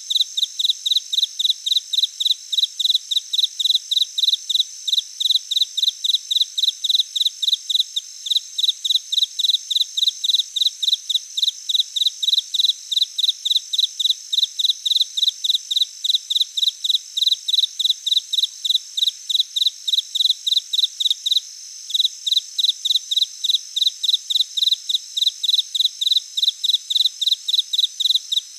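Insect chirping in an even, steady rhythm of about three high-pitched chirps a second over a faint continuous high hum, with a brief pause about three quarters of the way through.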